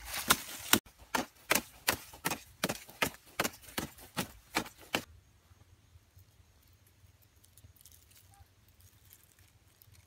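Machete blade chopping at an upright wooden stake in quick, regular strikes, about two and a half a second, which stop about five seconds in.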